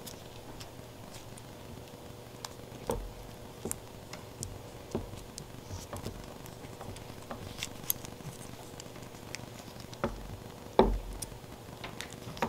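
Scattered light clicks and knocks from a small disassembled carburetor body being handled and turned over in gloved hands, with one louder knock near the end.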